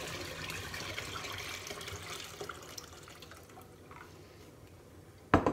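Pickling brine pouring out of a glass jar of cucumbers into a stainless steel pot, the stream thinning and trailing off about three seconds in. A single sharp knock near the end.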